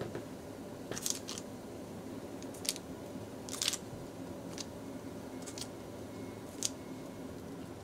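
Shiratama dango (small rice-flour dumplings) dropped one by one into a pot of hot water, each landing with a short, sharp plop: about seven, irregularly spaced, over a low steady background noise.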